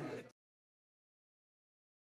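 Silence: a voice fades out in the first instant, then the sound track is completely silent.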